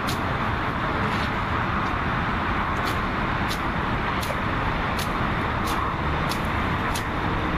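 Steady hum of distant road traffic, with a short high tick every half second to a second.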